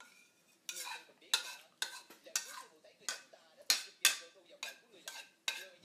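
A person sipping from a small glass, making short quick slurps about twice a second.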